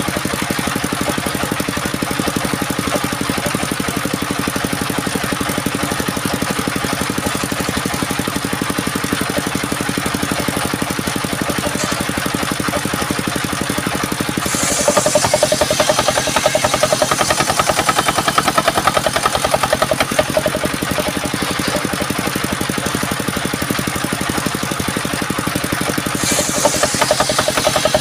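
Small engine of a homemade sawmill running steadily. About halfway through it gets louder and harsher, with a high hiss dropping in pitch at the onset, and the same happens again near the end, as the saw takes load.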